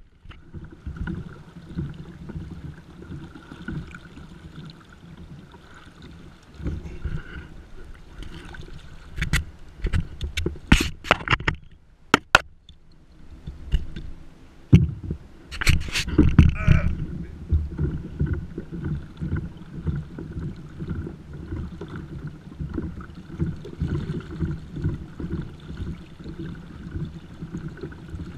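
Water sloshing and lapping against a kayak hull as a large red drum is held by the tail in the water alongside, with a steady low rumble on the microphone. A burst of sharp knocks and splashes comes near the middle, and another a few seconds later.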